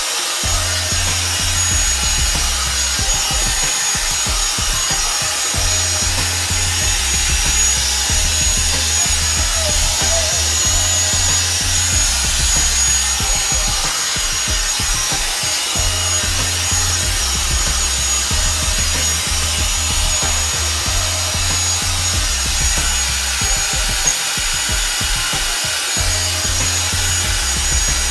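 Revlon One-Step hair dryer brush running steadily, a constant rush of blown air with a faint high motor whine, over a music track with a shifting bass line.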